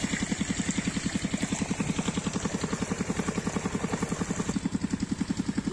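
8 hp single-cylinder diesel engine pumpset running steadily, its exhaust beating in a rapid, even chug of about a dozen beats a second, with the pumped water gushing from the delivery pipe.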